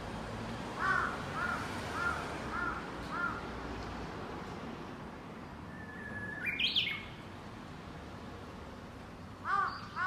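A crow cawing five times in a row, about two caws a second, then twice more at the end. A little past the middle, a Japanese bush warbler sings one short whistled phrase: a held note that breaks into a quick rising flourish.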